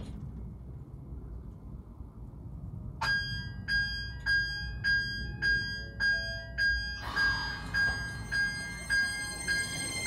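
An electronic bell starts about three seconds in and rings in a steady beat, a little under two strikes a second, growing softer after about seven seconds. A low steady rumble from the standing Keisei 3000-series electric train lies underneath.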